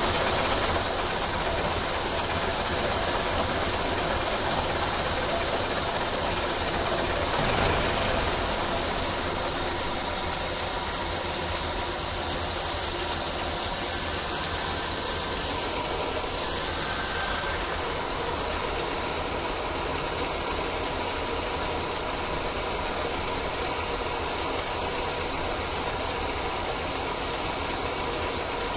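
Bizon Z056 combine harvester running steadily while its unloading auger pours grain into a steel trailer: a constant machine drone mixed with the hiss of falling grain.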